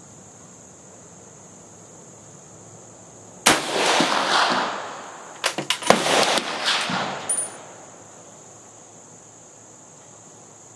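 A single rifle shot from a Swedish M38 Mauser in 6.5×55mm, about three and a half seconds in, the report trailing off over about a second. About two seconds later comes a quick run of sharp metallic clicks and clacks as the bolt is worked to eject the spent case. Crickets chirr steadily underneath.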